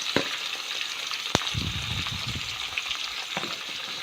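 Oil sizzling in a pan as chopped tomato, ginger and onion are added and stirred, with light taps and scrapes of the spoon and one sharp click about a second and a half in.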